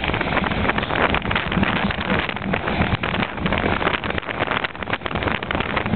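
Wind of about 20 knots buffeting the microphone in surging gusts, over the rush and splash of spray thrown off a Sailbird trimaran's hulls as it sails fast.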